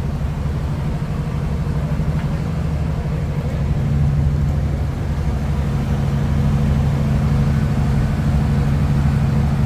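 Truck engine running steadily at idle: a low drone with a fast even pulse that grows a little louder about four seconds in.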